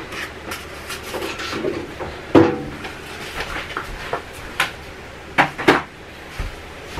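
Household clatter from tidying: a series of knocks and bumps as items are handled and set down, with a sharp knock about two and a half seconds in and two more close together near the end.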